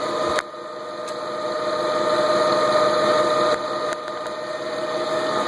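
Bridgeport milling machine's spindle running in low gear: a steady mechanical hum with a high whine. A sharp knock about half a second in, and another a little past halfway.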